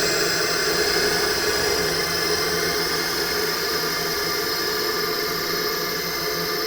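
Horror-style ghost sound effect: a steady, airy drone of noise with faint held tones underneath, without breaks or distinct events.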